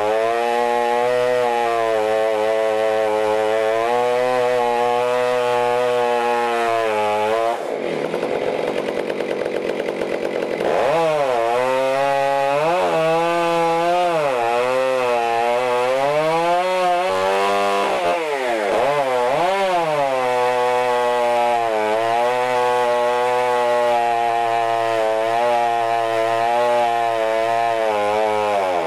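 Modified Stihl MS661 two-stroke chainsaw running at full throttle in a chainsaw mill, ripping a log lengthwise into a slab, its pitch wavering as it loads in the cut. About a quarter of the way in the revs drop off sharply for about three seconds, then climb back to full, with a shorter dip later.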